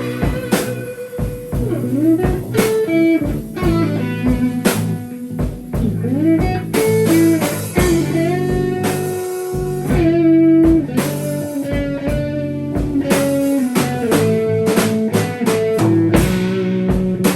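Band improvising: an electric guitar plays notes that bend up and down in pitch, over a drum kit and low sustained notes.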